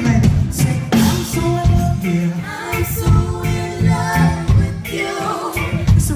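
Gospel music performed live: a singer's voice over a band, with a heavy bass line and regular drum hits.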